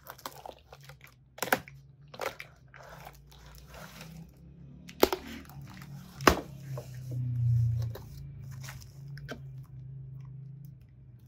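Utility knife cutting and scraping through clear packing tape on a cardboard parcel, with crinkling tape, cardboard rustling and several sharp clicks and snaps. A low hum runs underneath, loudest a little past the middle.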